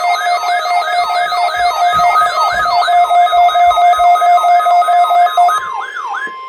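Weather-radio warning alarm: a loud siren-like tone that sweeps upward about three times a second over steady electronic tones. The steady tones stop about a second before the end, and the alarm cuts off at the end.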